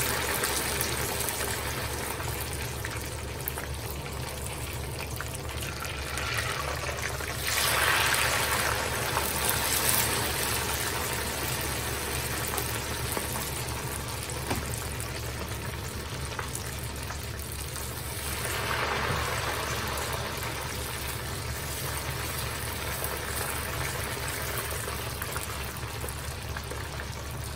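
Hot oil in a pot sizzling and bubbling as wet potato chips are lowered into it with a wire spider strainer. The sizzle swells loudly twice, about eight and nineteen seconds in, as fresh batches go in; the water left on the potatoes keeps the oil bubbling lively.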